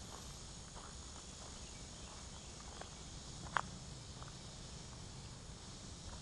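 Footsteps on a dirt forest trail over a steady high hum of insects, with one sharp click about three and a half seconds in.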